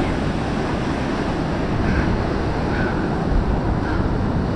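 Wind buffeting the microphone over the steady wash of ocean surf breaking below, an even rushing noise with no clear single event.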